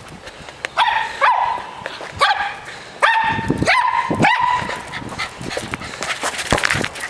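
Small terrier giving a string of short, high-pitched yapping barks while it worries a ball, about half a dozen in the first four and a half seconds, some dropping in pitch. A few sharp knocks follow near the end.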